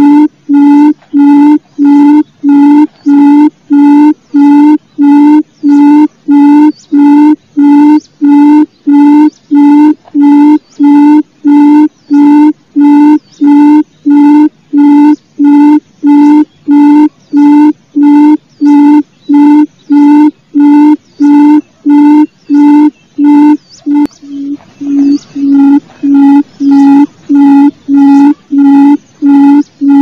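Barred buttonquail (gemak) calling: a long series of low hooting notes, evenly repeated about one and a half times a second. A little past two-thirds of the way through, the notes briefly weaken and blur into a noisy stretch before the series picks up again.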